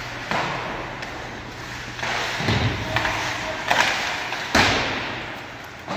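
Ice hockey play: skate blades scraping and stopping on the ice, with a series of sharp knocks and thuds from sticks, puck and players. A heavy low thud comes about two and a half seconds in, and the sharpest crack about four and a half seconds in.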